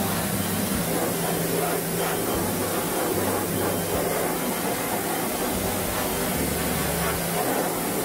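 Pressure-washer jet spraying steadily into the opened outdoor unit of an air conditioner, water hissing against its metal parts as the unit is washed.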